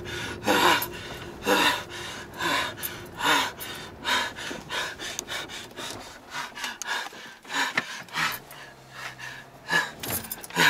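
A man breathing hard and fast in panic, a little more than one heavy breath a second, the breaths growing somewhat softer in the second half.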